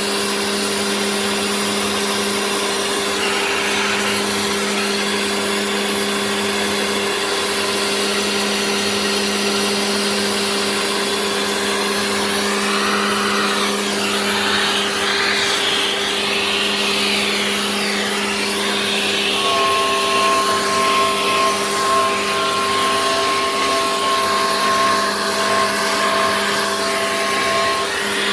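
Genmitsu 3020 PRO MAX CNC router running and milling, with a steady spindle hum under a shifting cutting noise. About two-thirds of the way through, a higher steady whine joins in, then stops shortly before the end.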